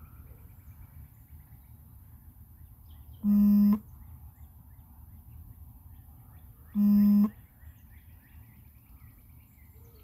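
Two buzzy warning beeps, each about half a second long and about three and a half seconds apart, from the DJI Mini 2's remote controller sounding the strong-wind warning alarm. Birds chirp faintly underneath.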